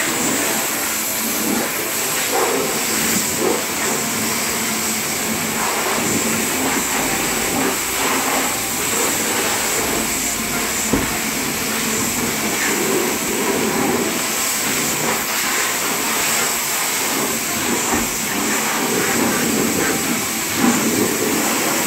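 High-pressure water jet from a car-wash pressure washer lance spraying against a car's bodywork and wheels, a steady loud hiss that swells and eases as the jet moves.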